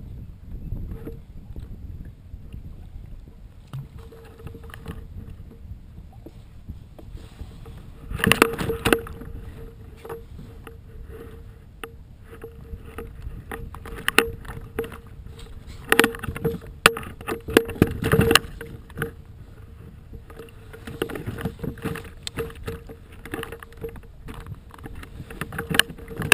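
Tarpon sit-on-top kayak being paddled on the sea: water splashes and knocks against the hull in irregular clusters, loudest about eight seconds in and again around sixteen to eighteen seconds in, over a faint steady tone.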